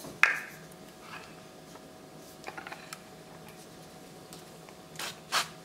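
Light plastic clicks and taps as the hinged lids of two Dash Mini waffle and griddle makers are lifted open, with a sharper click about a quarter second in and a few small ones around the middle. Near the end come two short hissing bursts, plausibly the avocado-oil spray hitting the nonstick plates.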